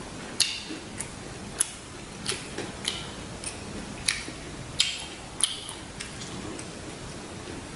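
Crisp, close-miked clicks and crunches of fresh lettuce and raw vegetables, about one every half-second, stopping a little past halfway through.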